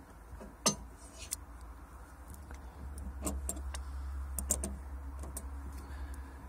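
Light metallic clicks and ticks of a 10 mm socket wrench and a loosening car battery terminal clamp, with one sharp click about a second in and scattered smaller clicks after, over a low rumble that swells after a few seconds.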